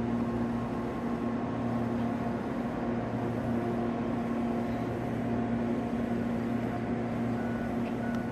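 A steady low mechanical hum holding one constant pitch, unchanging throughout.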